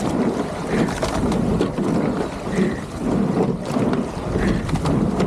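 Racing rowing shell under way: steady rush of water along the hull and wind on the microphone, with a short sound recurring about every two seconds in time with the stroke.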